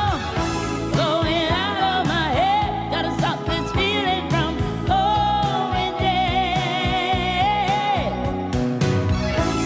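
Female lead vocalist singing a live pop song with vibrato over band accompaniment, holding one long note for about three seconds from halfway through.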